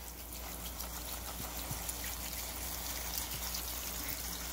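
Water poured from a bottle into a slow cooker, a steady trickle splashing onto raw ground meat and chopped vegetables.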